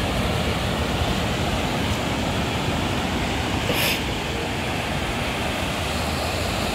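Atlantic surf breaking and washing up a sandy beach: a steady noise with a heavy low rumble. A short hiss comes just before four seconds in.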